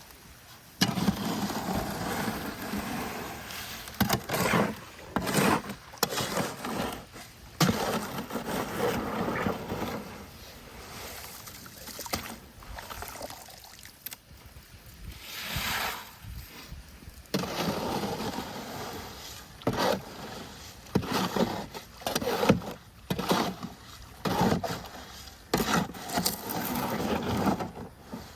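Wet concrete being mixed with a shovel in a wheelbarrow: irregular scraping strokes with sloshing and gurgling of the wet mix.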